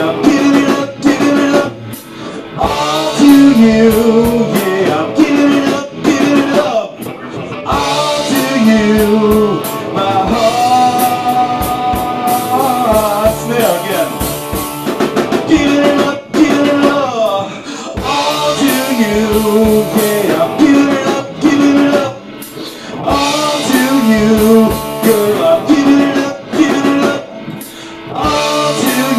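A rock band playing live in a small rehearsal room: electric guitar over a drum kit, with a repeating riff and some long held notes that bend in pitch.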